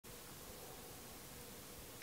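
Near silence: faint room tone with a steady low hiss.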